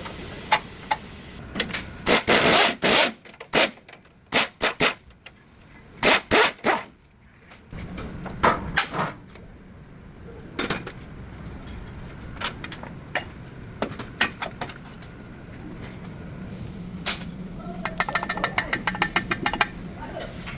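A series of sharp knocks and clicks at irregular intervals, with a rapid run of clicks near the end.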